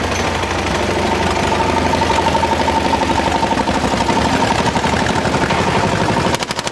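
Vintage diesel tractor engines running at low speed with a steady, even beat as the tractors crawl over a wooden-beam obstacle. About six seconds in, a sharper, rapid, even knocking takes over.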